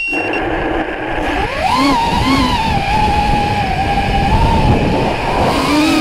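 Small FPV quadcopter's electric motors whining, the pitch rising and falling with the throttle as it lifts off and flies low, over heavy propeller wash and wind noise. A short high beep right at the start.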